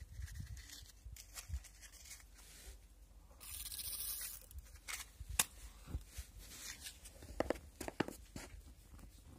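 A lighter clicking a few times, with a brief hiss, as the petrol in a blowtorch's preheating cup is lit.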